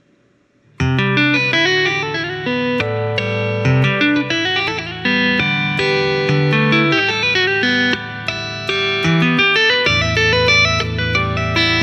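Electric guitar played flat on the lap with two-handed tapping: low bass notes and higher melody notes sound together in a quick flowing line. The playing starts just under a second in.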